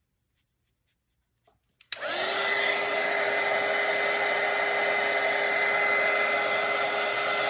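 A hair dryer is switched on with a click about two seconds in and runs steadily with a whine, drying the wet watercolor paint.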